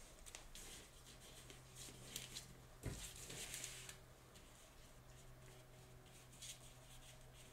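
Faint brushing and rubbing on paper as acrylic paint is worked over a collaged painting, with a soft thump about three seconds in, over a low steady hum.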